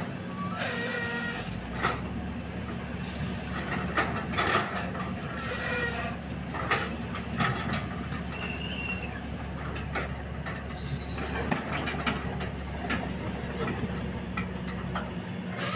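Kobelco SK200 hydraulic excavator digging: its diesel engine runs with a steady hum, under irregular metallic clanks and knocks from the bucket and boom.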